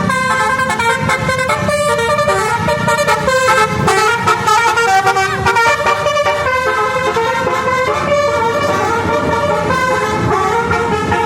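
Telolet Basuri musical air horn on a tour bus playing a rapid tune, the notes jumping in pitch every fraction of a second.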